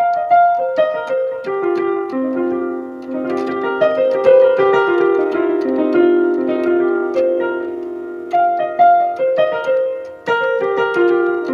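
Piano playing runs of the C minor pentatonic scale (C, E-flat, F, G, B-flat) up and down, with notes left ringing over one another. There is a short break about ten seconds in before a new run starts.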